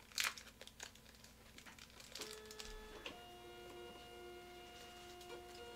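A brief crinkling rustle at the very start, then faint background music of long held chord tones that comes in about two seconds in.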